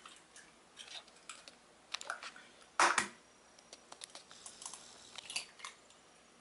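Eggs being cracked by hand into a white baking dish: small clicks and crackles of eggshell breaking apart, with one sharp knock about three seconds in.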